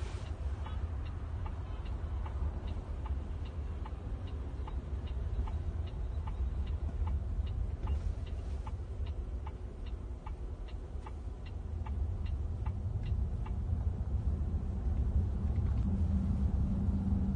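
A car's turn-signal indicator ticking at about two ticks a second, stopping about 13 seconds in, over steady low road and cabin rumble heard from inside a driverless robotaxi as it drives off. The rumble grows louder near the end.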